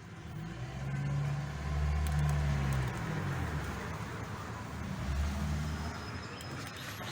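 Motor vehicle engine running, its low hum with shifting pitch swelling about a second in, easing after three seconds and swelling again near five seconds.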